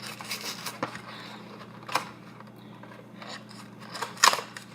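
Handling and opening the packaging of a bottle of contact lens solution: scattered small clicks and rustles, with a sharp snap about four seconds in.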